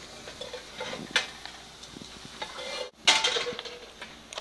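Slotted wooden spatula stirring fried potato pieces in a nonstick pan, with light scrapes and taps and a faint sizzle now that the heat is off. About three seconds in the sound breaks off abruptly, followed by a brief louder noise, and another comes at the very end.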